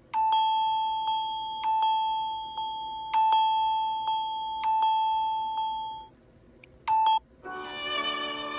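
A Samsung Galaxy A52 5G ringtone playing: one high, steady tone struck four times about a second and a half apart, fading slowly between strikes, which stops about six seconds in. It returns briefly about a second later, and near the end a different, fuller ringtone begins.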